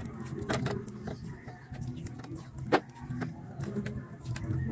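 Vinyl electrical tape being pulled off the roll and wound around the spliced wires of a scooter's CDI socket: scattered crackles and clicks, the sharpest nearly three seconds in, over a low steady hum.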